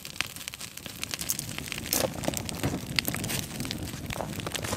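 Wood campfire of stacked split logs crackling steadily, with sharper pops about two and three seconds in.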